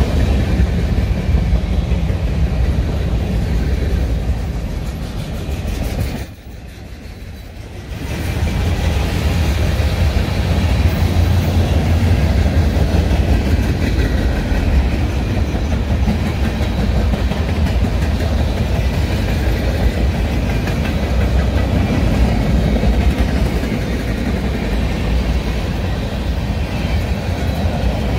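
A long CN freight train's cars rolling past at speed, steel wheels running on the rails with a steady heavy rumble and rhythmic clatter. The sound drops away sharply for about two seconds about six seconds in, then returns as before.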